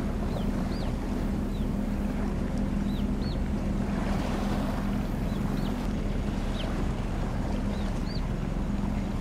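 Steady low hum of a large ship's machinery across the water, under a constant haze of wind and water noise. A series of short high chirps comes and goes, about one or two a second.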